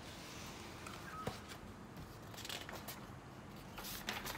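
Faint handling noises: a few light taps and rustles over a low hiss, with a sharper tap about a second in and several more near the end.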